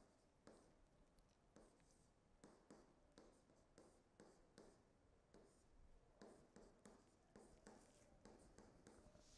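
Faint tapping and scratching of a stylus writing on a tablet, in short irregular strokes a few times a second.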